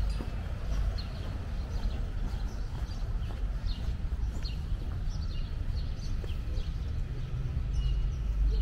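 Small birds chirping in many short, high, downward-sliding notes over a steady low rumble.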